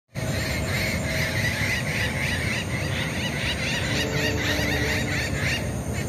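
Rose-ringed (Indian ringneck) parakeet giving a rapid series of short, repeated calls, about three a second, that stop near the end. A steady low rumble runs underneath.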